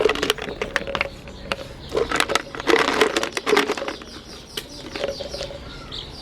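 Hard marble candies clattering and cracking in a meat grinder, an irregular run of sharp cracks and clicks that is densest a couple of seconds in, over a faint steady hum.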